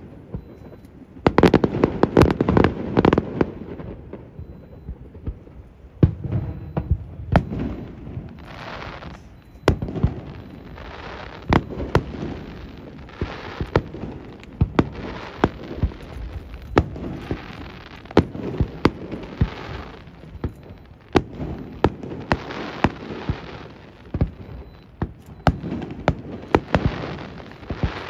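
Fireworks display: a rapid, unbroken barrage of shell bangs, the densest and loudest volley about two seconds in, with repeated patches of hiss between the bangs.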